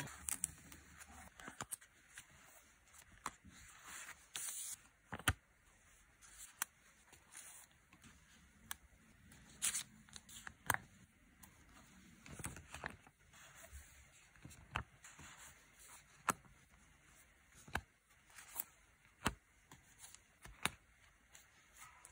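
Paper-craft handling: washi tape pulled off its roll and torn, and stickers peeled and pressed onto journal pages. It comes as faint scattered taps and clicks with a few short rustles.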